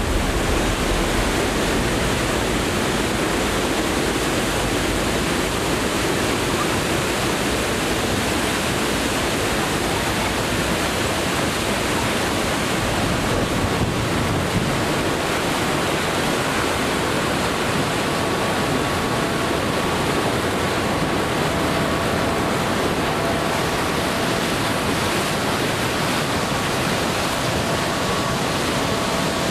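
Steady rush of churning white water on a river rapids ride, splashing around a round raft boat.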